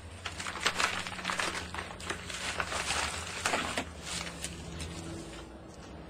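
Papers and photographs rustling and crinkling as they are leafed through by hand, a quick run of rustles that thins out about four seconds in, over a low steady hum.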